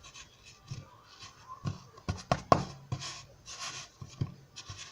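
Hands working a soft homemade flour-and-glitter dough: soft rubbing and pressing, with a scatter of short knocks and clicks, the loudest about two and a half seconds in.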